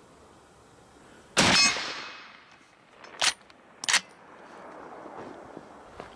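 A single shot from a Henry Long Ranger lever-action rifle in .308 Winchester, its report trailing off over about half a second. About two seconds later come two sharp metallic clacks under a second apart as the lever is worked open and shut.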